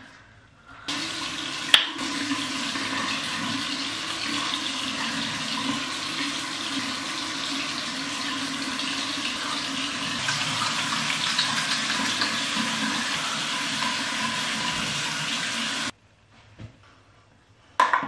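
Water running steadily from a bathroom tap into a sink, starting just under a second in, with a sharp click about two seconds in; the running stops abruptly near the end.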